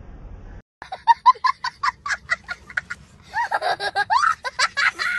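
A young child laughing hard in rapid high-pitched cackling bursts. The laughter starts abruptly just under a second in, after a brief gap.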